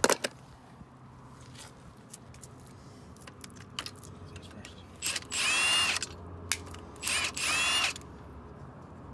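Cordless power tool running in two bursts of about a second each, its motor whine bending in pitch, while working bolts loose on an LQ4 6.0 L V8 during teardown. A sharp click right at the start.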